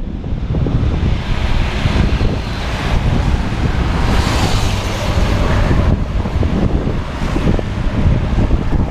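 Wind buffeting the microphone while riding a bicycle, with a steady hiss of tyres on a wet road; the hiss swells brighter about four seconds in.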